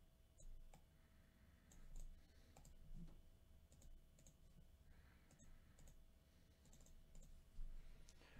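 Faint, irregular computer mouse clicks, about a dozen scattered over several seconds, against near-silent room tone.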